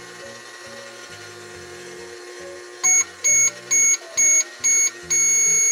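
Toy microwave running with a steady hum and a low electronic tune, then about three seconds in it beeps five short times and once longer, signalling that the cooking cycle is finished.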